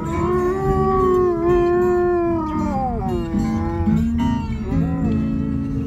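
A German Shepherd howling along to bluesy guitar music: one long howl of about three seconds that falls in pitch at its end, then a shorter howl about four seconds in.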